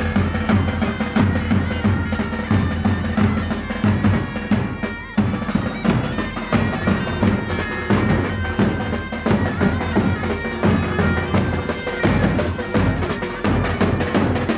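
Bagpipe music: a melody over steady drones, with drums beating along.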